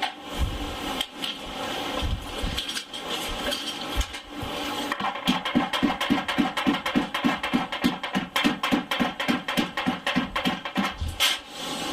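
Hammer blows forging a hot steel knife blank, about four a second, starting about five seconds in and stopping shortly before the end, over a steady background hum with a few scattered knocks before the hammering.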